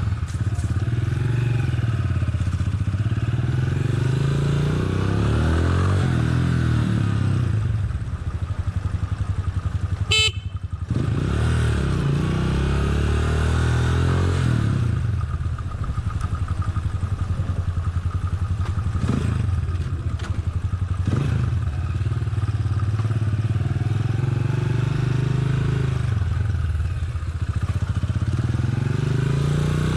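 Motorcycle engine running on the move, its pitch rising and falling as the rider accelerates and eases off. A short, sharp sound cuts in about ten seconds in.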